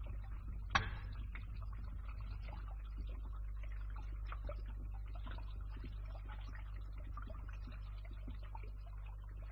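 Water draining and dripping in a pipe over a pump's steady low hum, with many small irregular ticks and drips and one sharper click just under a second in.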